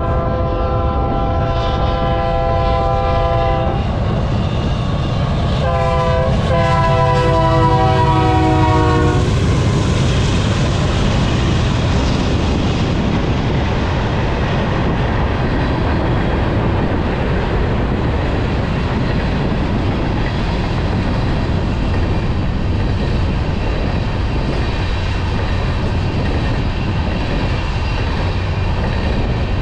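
Freight train locomotive's air horn sounding two long blasts, each a chord of several notes, the second dropping in pitch near its end as the locomotive goes by. After that, the steady rumble of the freight cars rolling past.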